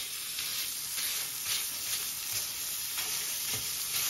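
Minced lamb sizzling in melted butter in a frying pan, with a slotted plastic spatula scraping and prodding as the mince is broken up.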